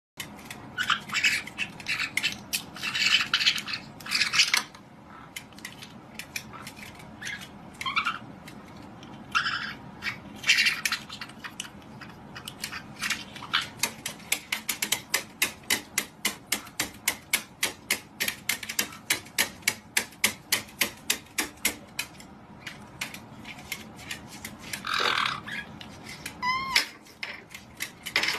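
White-bellied caiques giving short, shrill squawks and chatter, with a rising squeal near the end. Through the middle runs a long series of sharp clicking taps, about three a second.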